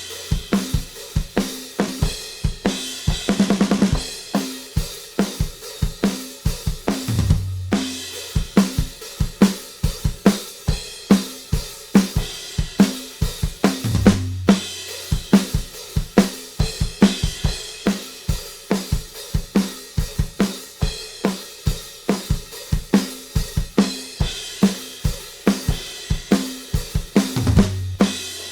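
Recorded drum kit groove with kick, snare, hi-hat and cymbals, playing back from a drum bus through a Z&H Designs 1178 compressor/limiter. A quick fill comes a few seconds in, and low drum accents recur about every seven seconds.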